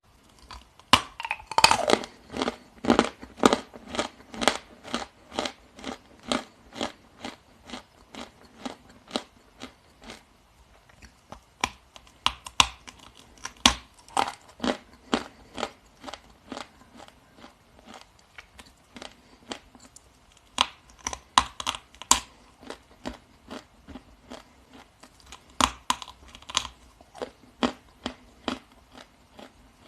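A person biting and chewing chunks of dry Ural clay: a run of sharp crunches, about two a second, thinning out for a while midway and picking up again later.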